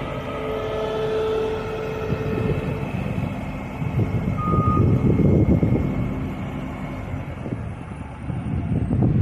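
Road roller's engine running and working, swelling louder twice. A steady reversing-alarm tone sounds for about the first three seconds, and a short higher beep comes about four and a half seconds in.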